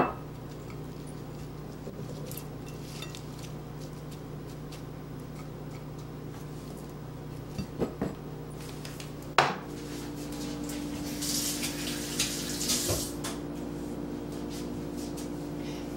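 Plates and dishes clinking and knocking on a kitchen counter, with the loudest knock about nine and a half seconds in, over a steady low hum that shifts higher after that knock. A brief hissing noise follows a couple of seconds later.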